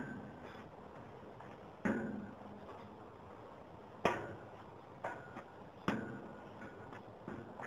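Metal struck by hand or foot several times at irregular intervals. Each blow is a sharp knock followed by a short ringing tone, the loudest about four seconds in.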